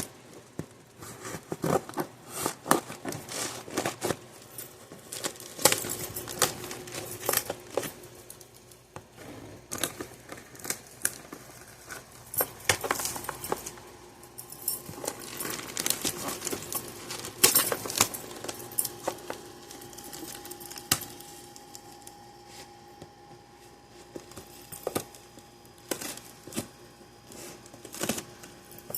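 A package being opened and handled by hand: irregular sharp clicks, rustles and rattles. A faint steady hum comes in about six seconds in.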